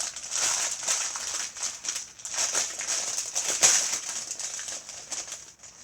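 Small plastic bags of diamond painting drills being handled, crinkling, with the tiny resin drills rattling inside in irregular clicks.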